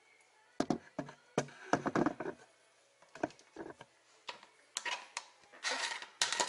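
Irregular knocks and clatters of quinces and stainless steel bowls and trays being handled at a stainless kitchen sink, with a denser rustling clatter near the end.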